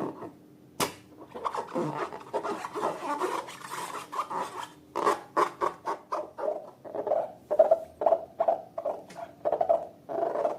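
Slime being handled and squeezed: a sharp click near the start, a soft rubbing noise, then short sticky pops about two or three times a second through the second half.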